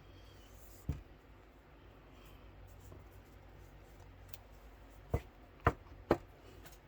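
Hands handling unboxing packaging: one sharp knock about a second in, then three sharp clicks or taps in quick succession near the end, with faint light ticks between.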